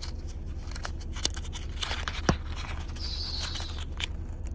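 Paper coin-roll wrapper crinkling and crackling as fingers pick at and peel back its crimped end, with a sharp click now and then, over a steady low hum. A brief high chirp sounds about three seconds in.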